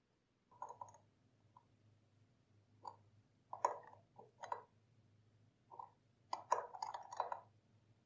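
Small open-end wrench clicking and scraping against the brass safety valve on an aluminium moka pot's boiler as the valve is tightened: scattered light metallic clicks and taps, coming thickest near the end.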